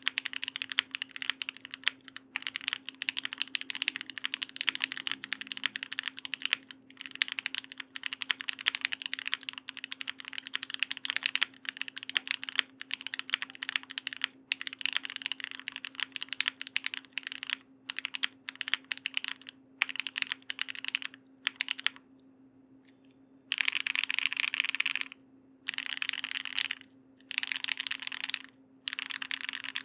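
Fast typing on the E7v2 custom mechanical keyboard: dense runs of keystrokes with short breaks, a pause of about a second and a half a little past two-thirds of the way in, then shorter bursts of typing.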